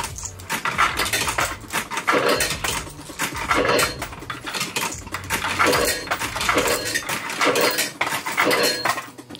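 Loose coins clinking and rattling in the hand, being fumbled and dropped into a fruit machine's coin slot.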